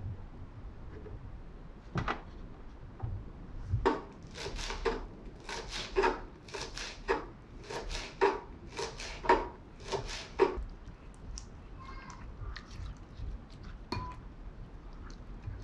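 Kitchen knife chopping fresh mint leaves on a wooden cutting board: a run of about ten even chops over some six seconds. A few lighter ticks follow, then a single clink with a short ring near the end.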